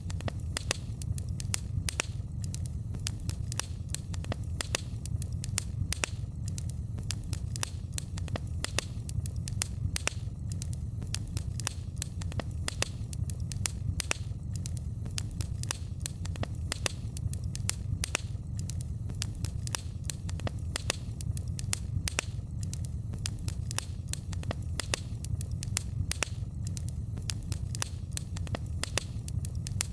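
Wood fire crackling, with many irregular sharp pops and snaps over a steady low rumble.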